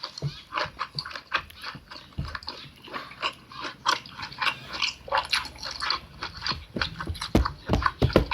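Close-up eating sounds: quick, irregular wet chewing and lip-smacking clicks, several a second, with a few heavier thuds near the end.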